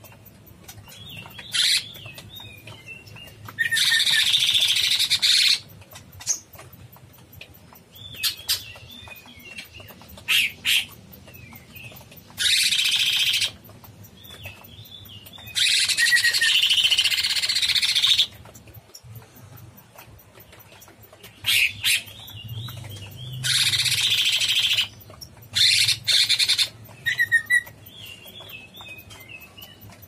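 Caged blue-winged leafbird (cucak cungkok) singing: short warbled chirping phrases alternate with louder harsh, hissy bursts lasting one to two seconds, repeated several times.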